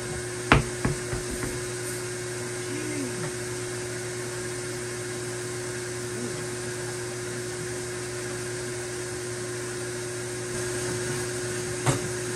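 Sharp knocks of hand tools on metal during rear brake work on a car: a quick cluster of three or four about half a second in, and one more near the end, over a steady hum.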